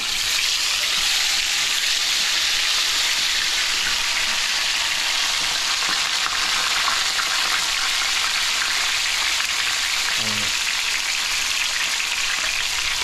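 Seasoned fish frying in hot oil: a steady, loud sizzle.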